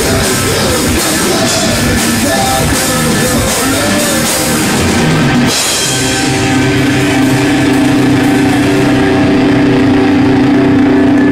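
Stoner rock band playing live on guitar, bass and drum kit; about halfway through the drums stop and a held chord rings on through the amplifiers.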